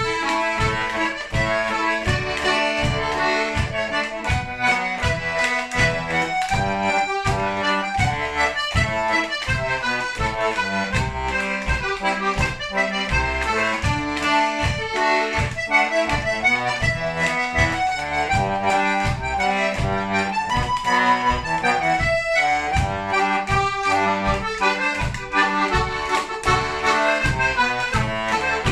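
Solo diatonic button accordion (melodeon) playing a lively traditional tune: a melody on the right-hand buttons over a steady bass-and-chord beat of about two strokes a second.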